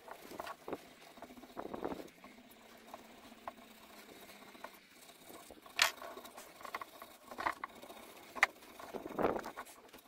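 Clear plastic film crinkling and crackling as it is peeled by hand off a carved wooden column. The sound comes in scattered rustling bursts, with a few sharp clicks.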